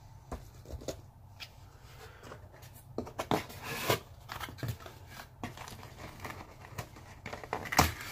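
Cardboard camera packaging being handled: a black cardboard insert slid out of the box and the inner cardboard compartments opened, giving scattered rustles, scrapes and light taps, with one sharper knock near the end.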